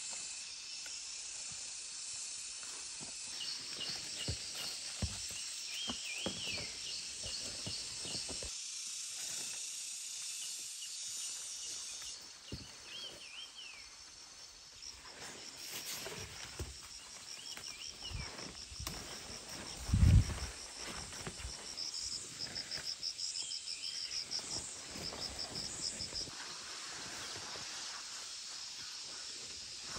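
Outdoor hillside ambience: insects calling steadily, with short arching bird calls repeated every few seconds and a fast pulsing trill in the second half. Light rustling and footsteps through leafy plants, and a single low thump about two thirds of the way through.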